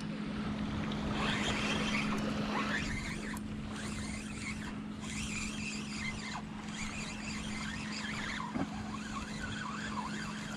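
An engine running with a steady hum.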